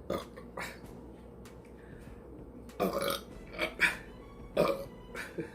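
A woman burping several short times in a row, the loudest burps coming in the middle of the stretch, brought up by gulping carbonated ginger soda.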